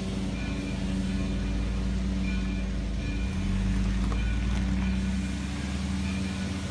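Passenger coaches of a steam excursion train rolling slowly away over a street grade crossing: a low rumble that swells in the middle, over a steady hum.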